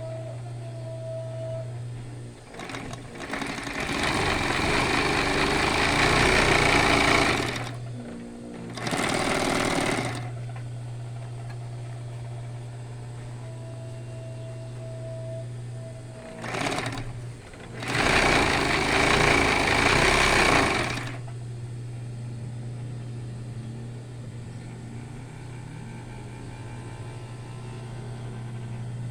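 Union Special 56300 industrial sewing machine running in bursts: a long run of stitching, a short one, a brief blip and another run of about three seconds. Its motor hums steadily between runs.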